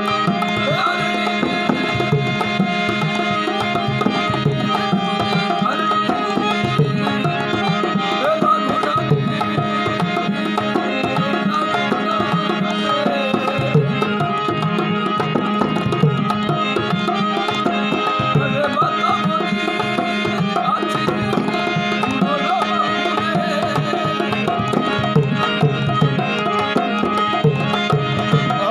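Indian folk music: a steady rhythm on a hand drum under a sustained drone and a wavering, ornamented melodic line.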